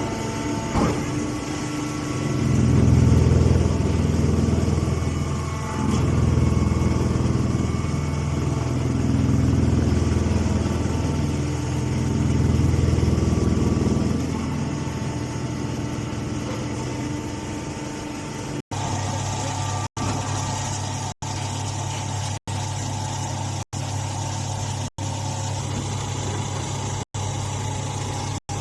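Grass baling machine running: a steady motor hum that swells louder in several slow waves, as if under pressing load, then settles. In the last stretch the sound cuts out very briefly about every second and a quarter.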